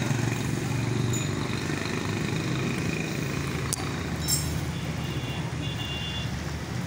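Motor-vehicle engine running steadily close by, with traffic noise on a wet street. A sharp click comes a little under four seconds in and a short high chirp just after it.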